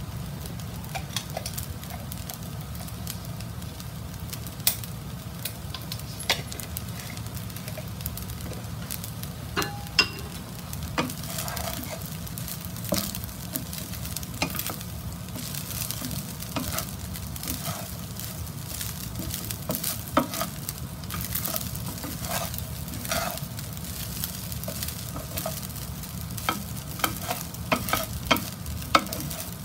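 Wooden spatula stirring and turning fried rice in a nonstick frying pan, with a steady sizzle. Scrapes and knocks of the spatula on the pan come more often after the first ten seconds, over a low steady hum.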